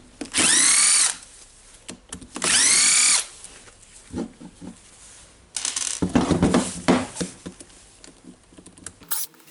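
Cordless electric screwdriver running in two short bursts, its pitch rising as it spins up, backing out the housing screws of a drill. Then rattling and clatter of parts being handled.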